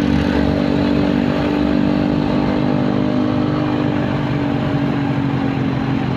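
Motorcycle engine running steadily while riding at cruising speed, heard from the rider's seat, with road and traffic noise.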